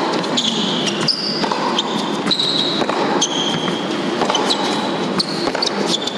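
Tennis rally on an indoor hard court: repeated sharp racket strikes and ball bounces, with many short, high sneaker squeaks as the players change direction, over a steady background haze.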